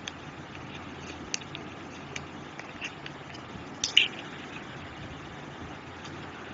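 A plastic spatula scraping black pressed eyeshadow out of its compact, with a few small crackling clicks, then a louder sticky, crackly squish about four seconds in as it is pressed into clear slime in a glass dish. A steady hiss and low hum sit underneath.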